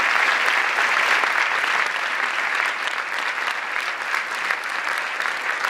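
Large audience applauding: dense, continuous hand clapping that eases slightly after about two seconds.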